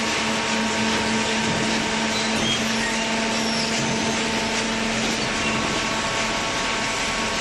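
Cardboard baler machine running: a steady motor hum with an even hiss over it.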